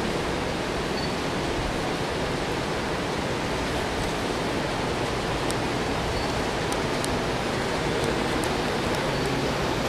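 Steady, even rushing noise with no voices, and a few faint ticks in the second half.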